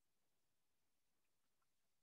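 Near silence: a pause in the narration with only a faint noise floor.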